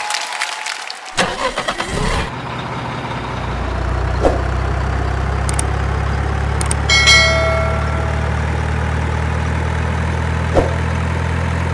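Excavator engine cranking with a short crackle and catching about two seconds in, then running steadily at idle. A short higher tone sounds about seven seconds in.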